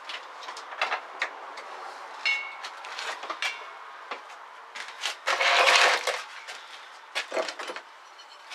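Tools and metal parts being handled on a workbench: scattered clicks and clinks, two of them with a short metallic ring, and a louder burst of noise lasting under a second about five and a half seconds in.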